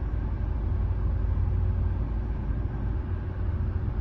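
Car air-conditioning blower running inside the cabin: a steady low rumble with a faint steady tone over it. The ventilation noise is very faint, and is typical of a clogged cabin pollen filter or a noisy interior blower fan.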